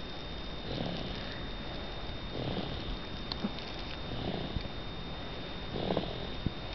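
Slow, rhythmic snoring, one breath about every 1.7 seconds, four in all.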